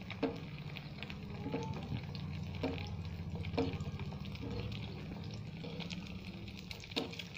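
An egg frying in hot ghee in a nonstick pan, sizzling steadily, while a steel spoon scoops the hot ghee over it. The spoon clicks and scrapes against the pan about six times, with a steady low hum underneath.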